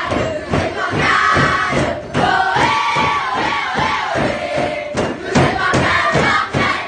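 A group of girls chanting and singing loudly together over a fast, steady beat of sharp strokes.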